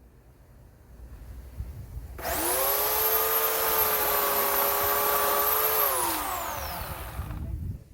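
Bauer 16-inch corded electric chainsaw (14.5 A) triggered about two seconds in: the motor whines up to speed, runs steadily for about three seconds, then winds down with falling pitch once the trigger is released.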